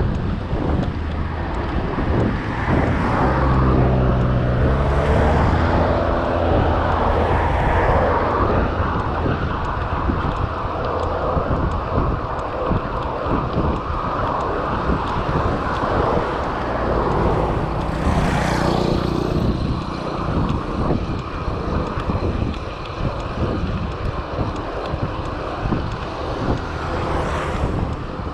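Wind buffeting the microphone on a moving bicycle, with motor vehicles passing on the road: an engine hum that climbs in steps a few seconds in, and another vehicle passing close about two-thirds of the way through.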